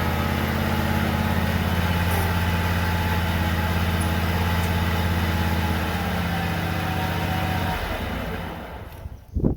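Tractor engine running steadily, then shut off about eight seconds in and winding down to a stop. A single thump follows near the end.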